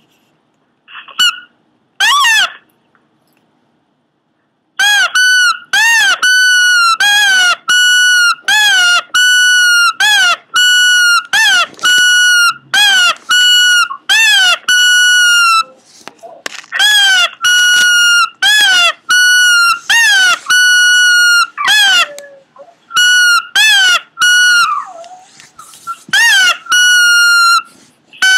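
Pomeranian making a long run of loud, high-pitched cries, about two a second, each with a quick rise and fall in pitch; a few single cries come first, then the steady run starts about five seconds in.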